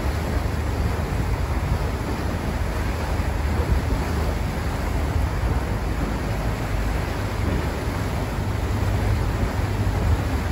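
Wind buffeting the microphone on the deck of a moving paddle steamer, over a steady wash of water along the hull.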